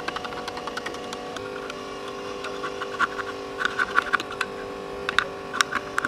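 Small 12-volt compressor motor running with a steady whirring hum, while a wooden spatula scrapes freezing yogurt across a metal tin tray, in clusters of scratchy clicks from about three seconds in.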